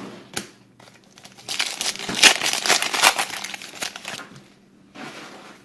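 Stack of football trading cards being shuffled and handled, a dense crinkly rustle with small clicks lasting about three seconds, then a shorter, fainter rustle near the end.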